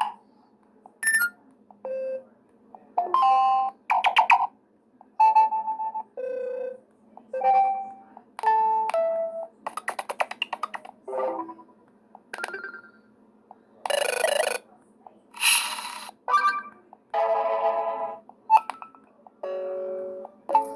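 Wileyfox Swift 2 Plus smartphone playing a quick succession of short ringtone previews, a different one about every second. Most are chimes and beeps; there is a fast run of clicks about halfway through, and two longer hissing sounds about two-thirds of the way in.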